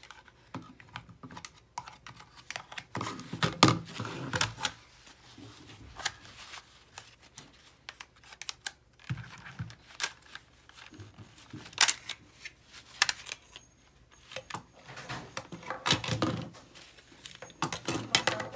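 Gloved hands working the slide of a toy P30 replica pistol off its frame: scattered, irregular clicks, taps and scrapes of the parts, with small clusters of handling noise a few seconds in, around the middle and near the end.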